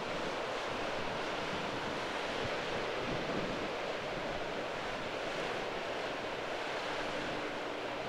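Steady rushing of wind and choppy, breaking waves, with wind buffeting the microphone.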